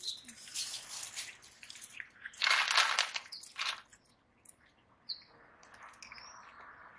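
Street cats crunching dry kibble, a crackly chewing sound in irregular spells that is loudest in the middle, with a few faint high bird chirps near the end.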